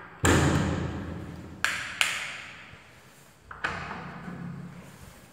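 Metal grille safety gate being handled, clanking with ringing metallic hits. There is a loud first clank just after the start, a pair of clanks about a second and a half in, and another pair past the middle. Each one rings out slowly.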